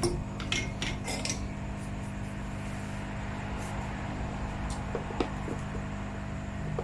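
Light metallic clinks and taps of small hand tools being handled on a workbench: several in the first second and a half, and a couple more around five seconds in, over a steady background hum.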